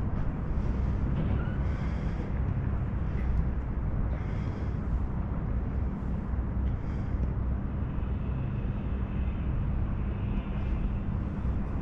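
A steady low engine drone with a few brief, faint higher noises over it.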